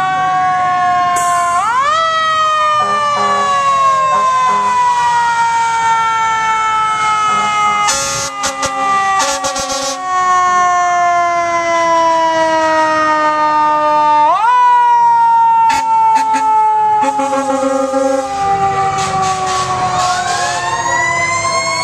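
Fire truck sirens wailing together in a parade. One siren winds up sharply about two seconds in and again around fifteen seconds, sliding slowly down in pitch between, while other siren tones rise and fall over it. Short horn blasts sound twice, in the middle and again later on.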